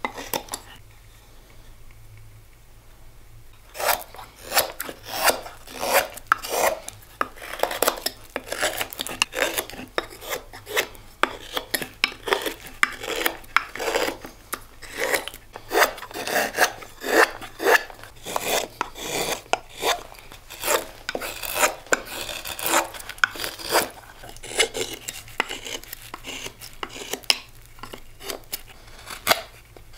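Carving knife slicing shavings off the wooden handle of a hand-carved bowl, one short scraping cut after another, about one or two a second, starting after a pause of about three seconds.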